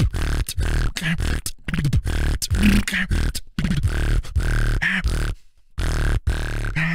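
Beatboxing freestyle: a fast, dense run of mouth-made kicks, snares and clicks over deep bass tones, broken by a short pause about five and a half seconds in.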